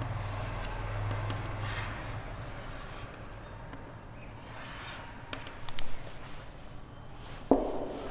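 Writing and drawing strokes rubbing on a board, with a few small clicks midway and one sharp knock near the end.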